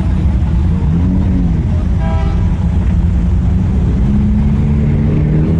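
Car engines running close by in a steady low rumble, with a short car horn toot about two seconds in and an engine starting to rev up near the end.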